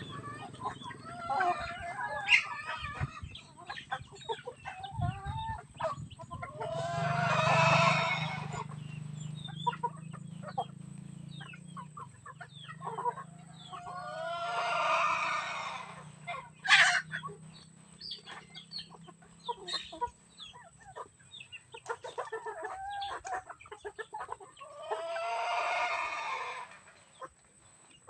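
A rooster crowing three times, each crow long and drawn out, spaced about nine seconds apart, with hens clucking and short sharp ticks in between.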